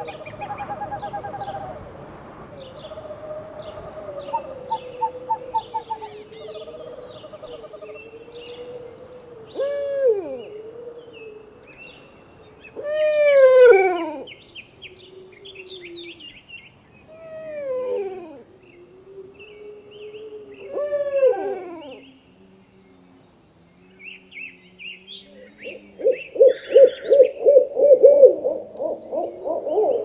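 Owls calling in turn. First come wavering hoots, then four drawn-out calls that rise and fall, a few seconds apart, and near the end a fast run of short hoots at several a second. Higher chirps sound throughout.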